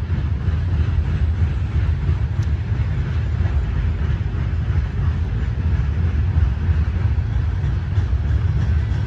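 Freight train rolling across a steel truss railway bridge: a steady low rumble.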